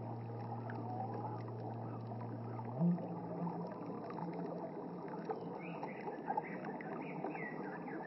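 Creek water running over rocks, with a flute melody holding low sustained notes that step up to a higher note about three seconds in. Birds chirp with short falling calls in the second half.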